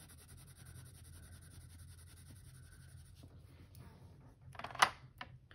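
Prismacolor 4B water-soluble graphite pencil shading on sketchbook paper with hard pressure, a soft, steady scratching for about three seconds. Near the end comes one short, sharp clack, followed by a smaller tick.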